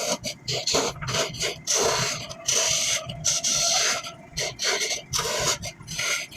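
Hand tool working wood in a run of uneven scraping strokes, some short and some nearly a second long.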